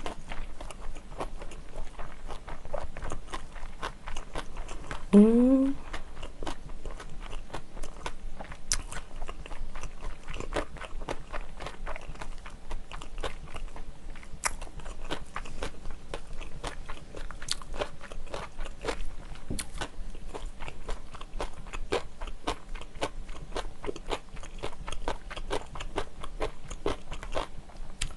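Close-miked chewing of kimchi fried rice: a steady stream of wet mouth clicks and crackles. About five seconds in, a short rising hum of the voice.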